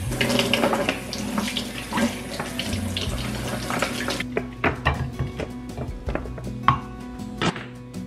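Kitchen faucet running water over strawberries in a plastic clamshell container, splashing into a stainless-steel sink. The water stops about four seconds in, and a run of light taps and clicks follows as the fruit is handled.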